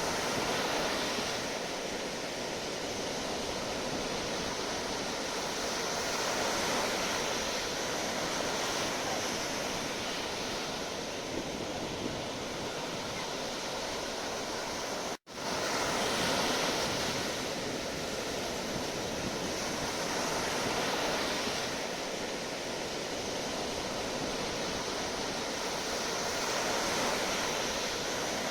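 Sea waves washing onto a shore: a continuous rushing surf that swells and ebbs every few seconds. About halfway through, the sound drops out completely for an instant and then resumes.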